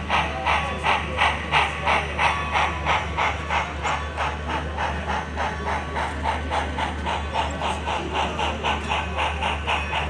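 Sound-equipped HO-scale model of Strasburg Rail Road No. 90, a 2-10-0 steam locomotive, chuffing steadily as it runs, about three to four chuffs a second and quickening a little, over a low steady hum.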